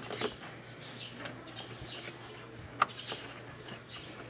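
Faint birds chirping in the background, with a few sharp clicks as the headlight bulb and cover parts are handled; the louder clicks fall about a second in and near three seconds.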